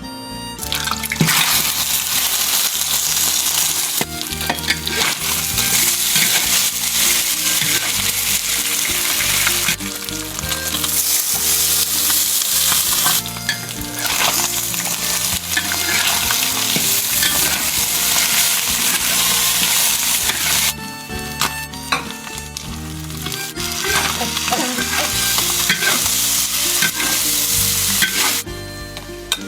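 Food sizzling loudly as it is fried and stirred in a hot pan, easing off briefly a few times, over soft background music.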